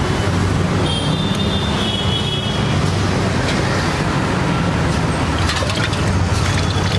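Steady rumble of street traffic, with a few faint ticks and brief high tones over it.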